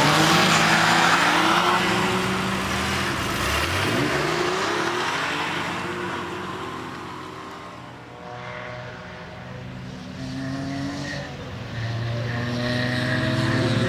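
Sports car engines revving and driving past, the pitch rising and falling as they pull away and change gear. Loudest at the start, the sound fades to about eight seconds in, then builds again as more cars approach.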